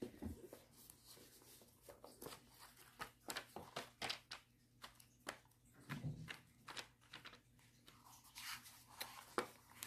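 Thin pages of a hardcover Bible being flipped by hand: an irregular run of faint paper flicks and rustles.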